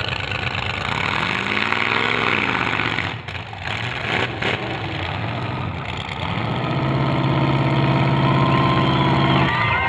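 Demolition derby car engines running and revving, one rising and falling in pitch about two seconds in, then settling into a steady, even drone from about six and a half seconds.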